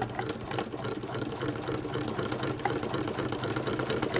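An antique Hexagon shuttle sewing machine, built by the Standard Sewing Machine Co. of Cleveland and over a century old, stitches a test seam through fabric. It runs smoothly and steadily, with a fast, even clatter from the needle and shuttle mechanism over a low hum.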